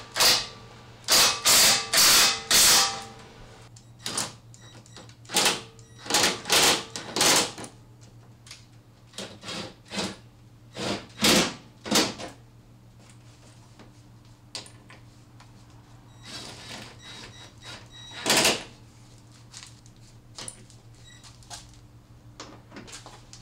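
Cordless 3/8-inch power wrench run in short bursts of under a second, undoing bolts on the car's front structure: about a dozen bursts in the first twelve seconds, then a few more spaced out. A steady low hum lies underneath.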